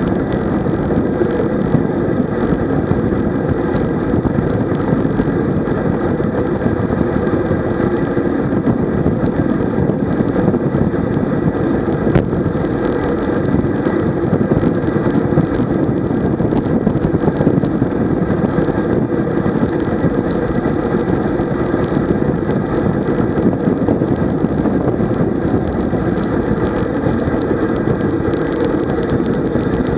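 Steady wind rush buffeting the camera microphone, with tyre noise from a road bike descending at about 50 km/h. There is one brief click near the middle.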